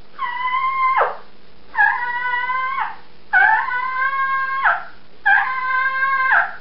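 Mouth diaphragm turkey call blown in a series of four drawn-out yelping notes, each about a second long. Each note holds a steady pitch, then drops off sharply at the end.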